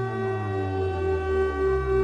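Ominous soundtrack music: a steady, siren-like held tone over a deep low drone.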